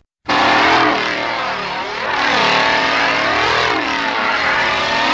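Horror-film score played in reverse: a dense, engine-like drone whose many overtones sweep up and down in pitch together, like a revving chainsaw. It cuts in after a brief silence at the start.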